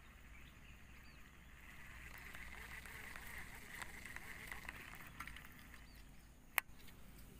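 Fishing reel being wound in to retrieve the lure, a faint steady whir, with one sharp click about six and a half seconds in.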